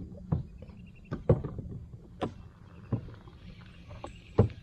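Scattered sharp knocks and clicks of handling on a small boat and fishing rod, about six in all, the loudest about a second in and near the end, over a low steady hum.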